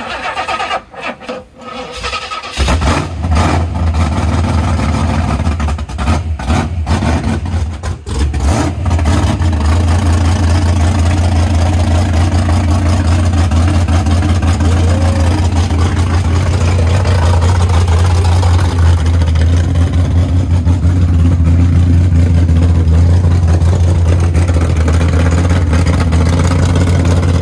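A 1971 Ford Maverick Grabber's 302 small-block V8 cranking, catching after about two and a half seconds, firing unevenly for several seconds, then settling into a steady run that sounds good.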